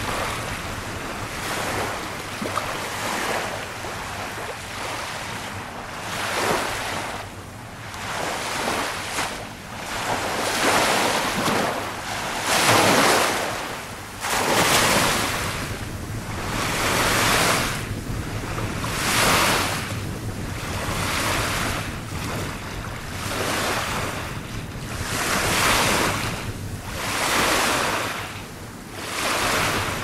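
Small sea waves washing up onto a sandy beach, each wash a swelling hiss of surf that fades again, about every two seconds. The loudest washes come near the middle.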